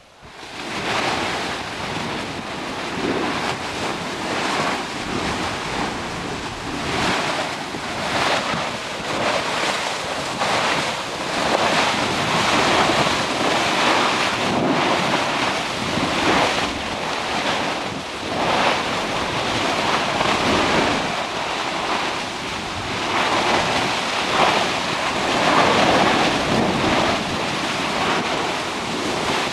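Molten lava spattering and churning in Kilauea's Pu'u O'o vent: a loud, surging rush like surf that swells and eases every second or two.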